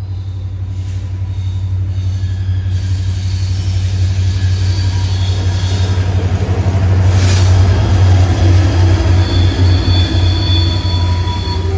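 Loaded coal train passing close by over a low, steady drone, its steel wheels squealing on the rails in thin high tones. The sound builds to its loudest a little past the middle and eases near the end.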